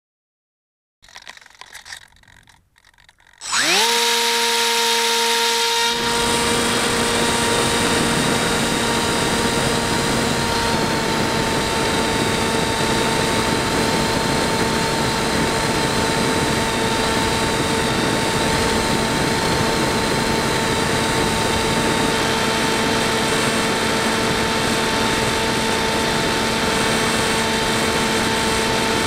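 Electric motor and pusher propeller of an Easystar 2 RC foam plane heard from its onboard camera: a few faint knocks, then about three and a half seconds in the motor spins up fast to a steady high whine. From about six seconds on, steady wind noise runs under the whine.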